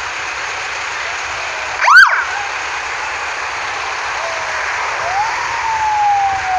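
Emergency vehicle sirens. About two seconds in comes one short, loud siren whoop that rises and falls. From about five seconds a siren rises quickly and then falls slowly, over a steady hiss of background noise.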